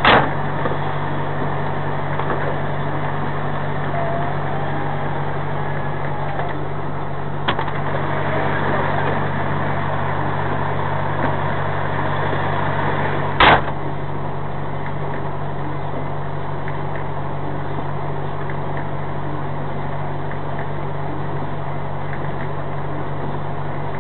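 Semi-truck's diesel engine idling, a steady low hum heard inside the cab, with a few sharp knocks: one at the start, a lighter one about a third of the way in, and the loudest a little past the middle.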